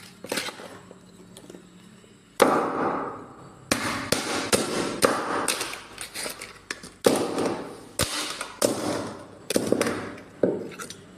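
A hammer striking a cheap mobile phone's metal frame on wooden floorboards: a series of sharp, loud blows that begins about two seconds in, around a dozen of them, smashing the phone apart.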